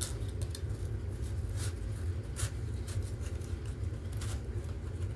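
Paper and cardboard handling: a folded instruction manual being pushed back into its cardboard packaging, giving scattered crinkles and scrapes over a steady low rumble.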